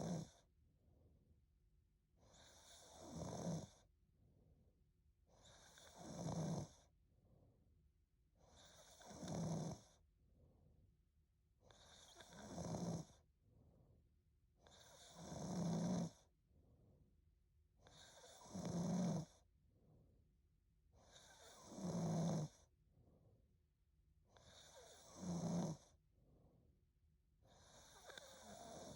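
A young woman snoring in her sleep: one snore on each breath, about every three seconds, ten in all, with softer breathing between them.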